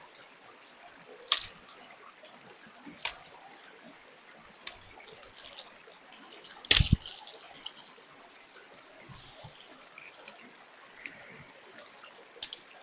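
A string of sharp cracks and knocks, sticks being snapped and handled to build a campfire, the loudest about halfway through and a quick cluster of smaller clicks later on. A faint trickle of stream water runs behind.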